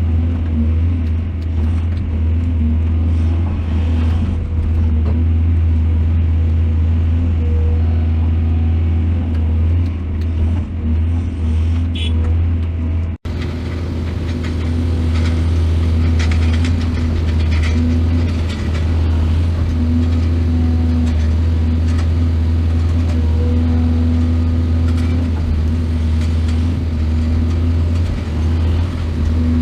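Heavy diesel engine of earthmoving machinery running steadily with a deep drone, with scattered knocks and rattles. The sound drops out for an instant about halfway through and resumes.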